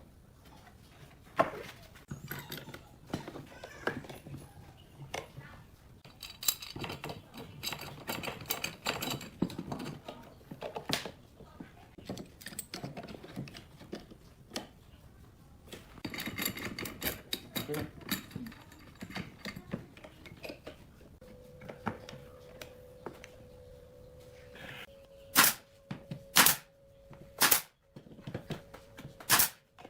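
Woodworking handling sounds: scattered taps and knocks of wood and tools, with two stretches of scraping or rustling. A faint steady hum comes in about two-thirds of the way through, and several loud, sharp strikes land near the end.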